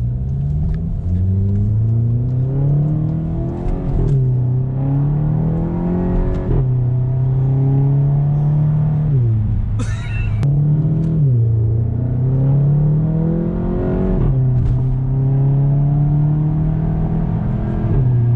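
Volkswagen MK7 GTI's turbocharged 2.0-litre four-cylinder breathing through a Clubsport S muffler with the resonator deleted, pulling hard through the DSG gearbox: the exhaust note climbs and drops sharply at each gearchange, several times over, with no drone.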